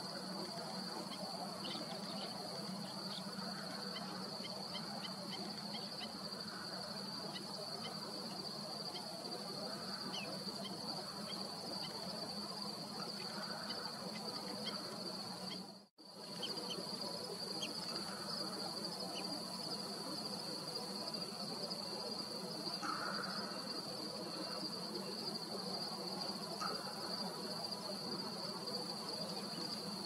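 Steady outdoor insect chorus: a constant high-pitched trill over a low, even hum, with a few faint ticks scattered through. It cuts out for a moment about halfway through, then carries on as before.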